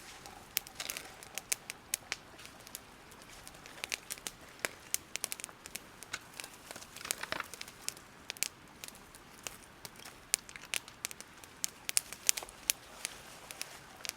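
Plastic bag being handled and crumpled: irregular crinkling crackles throughout, with a few longer rustles.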